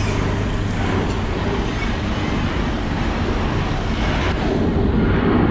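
Steady street noise with the low rumble of a motor vehicle.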